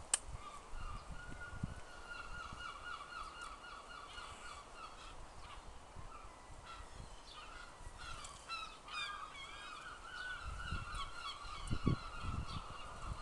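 Birds calling over and over, a honking or cawing call repeated many times, with two or three low, dull knocks near the end.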